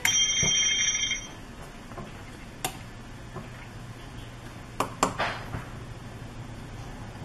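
An electronic doorbell chime note from a wireless doorbell receiver rings out and dies away over about the first second. A few sharp clicks follow, the loudest of them close together about five seconds in.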